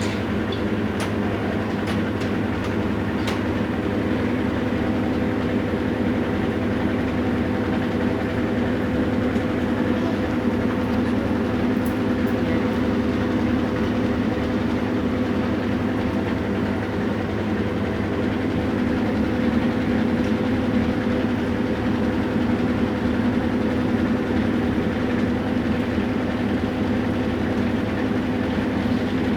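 Whirlpool washing machine spinning steadily with an even hum, working properly on new suspension rods and springs.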